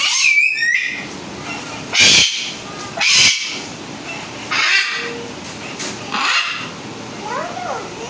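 Sulphur-crested cockatoos screeching: about five short, harsh screeches a second or so apart, the first with a sliding pitch, followed near the end by softer warbling, gliding calls.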